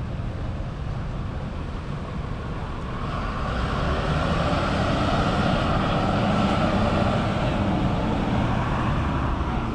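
A road vehicle passing on the street: its engine and tyre noise builds from about three seconds in and fades near the end, over a steady low rumble of street traffic.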